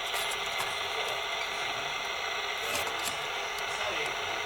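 Steady static hiss from a CB radio's speaker with the receiver on and no signal, with a few faint clicks.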